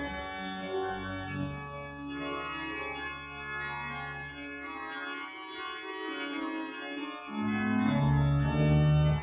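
Church organ playing sustained chords over held bass notes. The bass drops away about five seconds in, then the organ comes back louder on low notes near the end.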